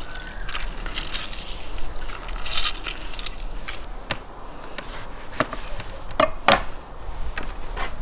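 Lemon juice dripping and squeezing into a plastic basin, then a knife cutting an orange on a wooden cutting board with a handful of sharp knocks about four to six and a half seconds in.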